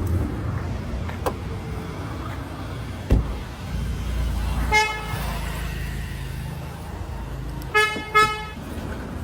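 Vehicle horn: one short toot about five seconds in, then two quick toots near the end, over a low traffic rumble. A single sharp thump about three seconds in.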